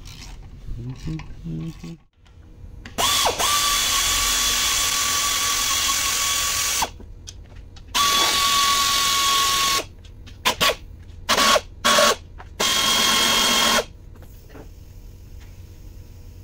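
Pneumatic air ratchet spinning in repeated runs, a steady whine over the air noise, as it backs out the bolts of a Toyota 2AR-FE engine's lower crankcase: three runs of one to four seconds and a few short blips between them.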